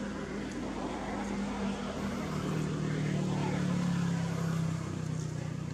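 A motor vehicle engine running with a steady low hum that grows louder about two seconds in and eases off near the end, as if passing by.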